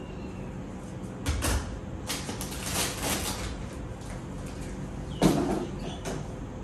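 A plastic storage container being handled. A clunk comes as it is brought down, then a stretch of packet rustling as things go into it, then a sharp knock about five seconds in as it is set back on the shelf.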